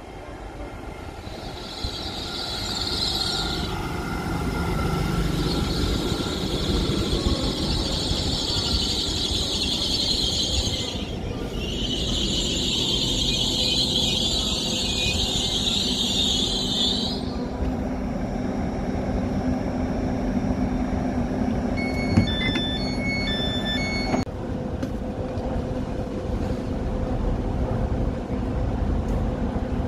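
LNER Azuma high-speed train running into the platform and slowing to a stop, with a high-pitched squeal of its brakes on and off for roughly the first seventeen seconds over a low rumble. About twenty-two seconds in, a couple of seconds of electronic beeping from the door alert, then the standing train's steady hum.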